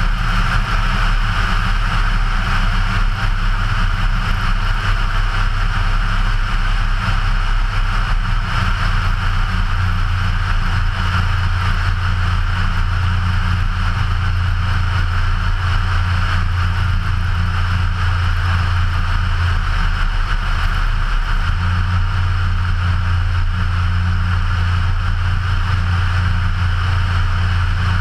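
Ikarus C42 ultralight's 100 hp Rotax 912 four-cylinder engine and propeller running steadily in level cruise flight, a constant low drone with a rushing noise over it.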